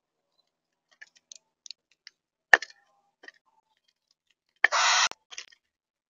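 Light scattered taps and clicks on a bird feeder, with one sharper knock about halfway, then a single harsh caw from a corvid, about half a second long, near the end.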